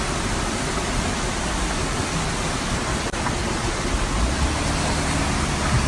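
Floodwater rushing down a road in a steady, even wash of noise. A low rumble joins in underneath about two-thirds of the way through.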